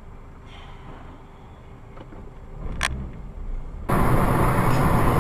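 Car sound: a quiet low rumble, then a short sharp sound just under three seconds in. About four seconds in it switches suddenly to much louder, steady road and engine noise.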